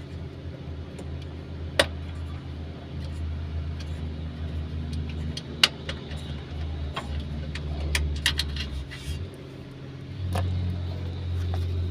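Hino 500 truck's diesel engine idling steadily, with several sharp clicks over it. The engine note dips briefly and comes back louder near the end.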